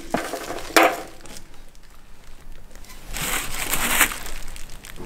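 Plastic wrapping film crinkling as a hand handles a wrapped part, with a short sharp knock just under a second in and a longer rustle about three seconds in.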